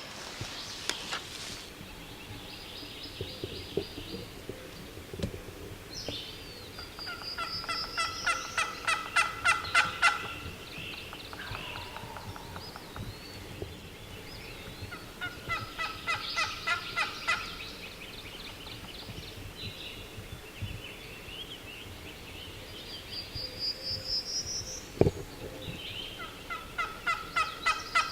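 Wild turkey gobbler gobbling, three gobbles spaced about eight seconds apart, the last running past the end. Short, higher rising bird calls come just before the first and third gobbles, and there is one sharp knock between the second and third.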